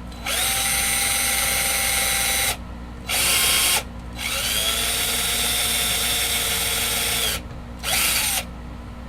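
Power drill driving a small pilot bit into a guitar body through the pickguard screw hole, run in four pulls of the trigger: two longer runs and two short bursts. Each run's whine rises as it spins up and drops as it stops.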